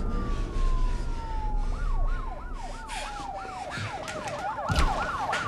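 Emergency vehicle sirens. One tone slides steadily down in pitch over the first couple of seconds, and from about two seconds in another siren yelps, rising and falling quickly about three times a second.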